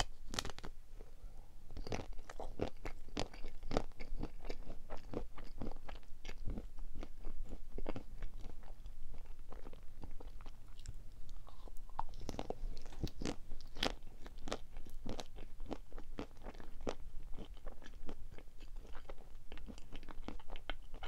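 Close-up chewing and biting of chocolate-coated marshmallow sweets, with many small crisp clicks and crunches.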